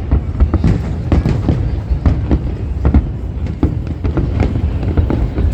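Aerial fireworks show: a rapid, continuous barrage of booms and sharp cracks, several a second, over a deep rolling rumble.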